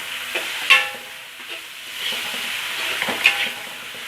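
A spatula stirring chilies and tomatoes that sizzle as they fry in oil in a pan. The spatula strikes the pan with a ringing clang twice, about a second in and again near the end.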